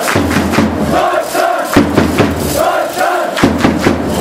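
A crowd of fans chanting in unison, with rhythmic hand-clapping and a bass drum beating along.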